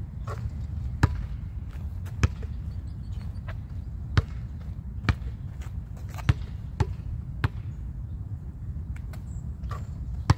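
A basketball bouncing on an asphalt court: a string of sharp, irregularly spaced thuds as it is dribbled before free throws and bounces back after the shots, over a steady low rumble.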